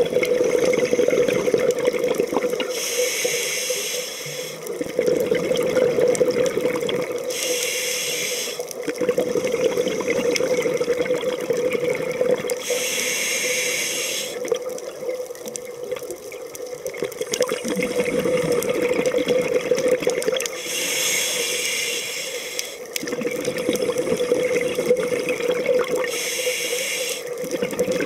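Scuba diver breathing through a regulator underwater: five slow breath cycles, each a short hiss followed by a longer stretch of gurgling exhaled bubbles, over a steady hum.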